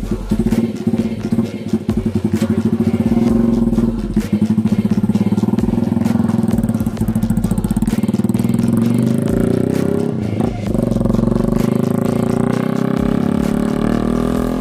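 Honda TMX 125 Alpha's single-cylinder four-stroke engine running with a fast, even exhaust putt as the motorcycle pulls away on a test ride, with a brief dip in the engine note about ten seconds in.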